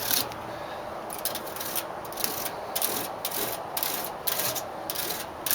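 A piece of fine-tooth plastic comb raked through an air conditioner condenser's thin metal cooling fins, a dry ratcheting scrape in short strokes, about three or four a second.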